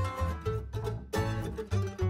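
Background music: an instrumental passage with plucked acoustic strings over a steady beat.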